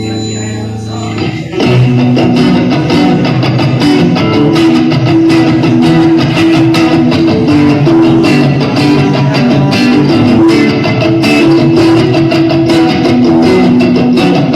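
Live rock band playing an instrumental passage with electric guitar and bass. A held chord rings for about a second and a half, then the full band comes in loud with a steady beat of strikes.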